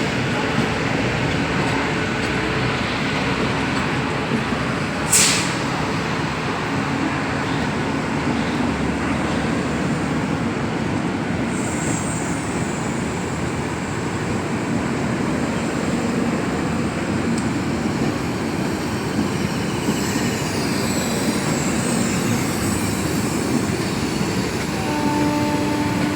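Tejas Rajdhani Express passenger train rolling past on departure, with a steady rumble of wheels on rail. There is one sharp clack about five seconds in.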